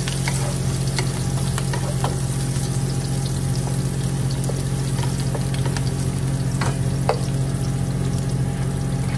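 Chopped onions sizzling and crackling in hot oil in a nonstick wok while a wooden spatula stirs them, with a few louder scraping strokes. A steady low hum runs underneath.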